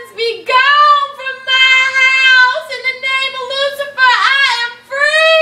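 A girl singing in a high voice without accompaniment, holding long notes that swoop up and down, with short breaks between phrases.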